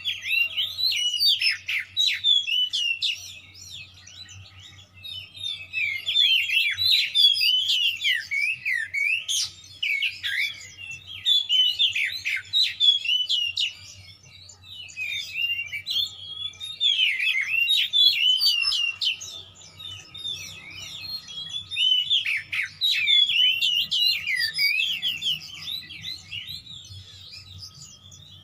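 Oriental magpie-robin singing a fast, varied song of whistles and chirps in long bursts broken by short pauses. It is in the agitated, combative mood that keepers call 'emosi', singing a full repertoire of mimicked phrases.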